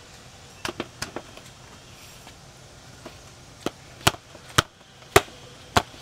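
Sharp, irregular knocks and clacks of a rifle being handled and pushed into its cardboard box, a quick few about a second in, then about one every half second in the second half.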